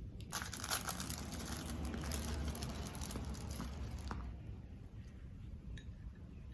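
Plastic packaging of a quartz clock movement kit being handled and rustled for about four seconds, then quieter handling with a few small clicks.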